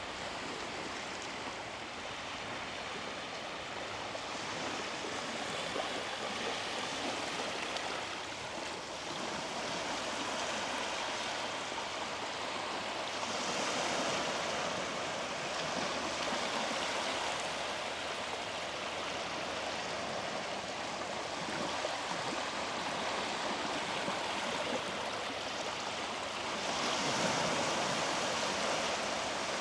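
Sea waves washing onto a beach: a steady hiss of surf that swells louder twice, about halfway through and near the end.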